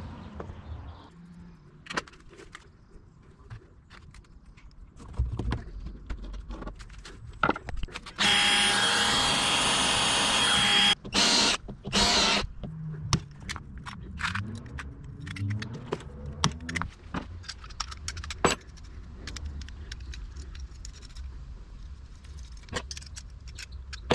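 A power drill runs steadily for about three seconds, then in two short bursts, among scattered clicks and knocks of tools and parts being handled.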